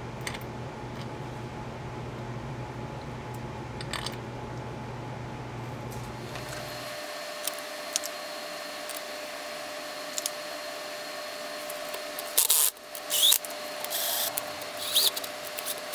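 Bolts being started by hand into the engine casing: scattered faint metallic clicks, then a few louder scrapes and short squeaks about three-quarters of the way through. A steady low hum runs underneath and stops about halfway.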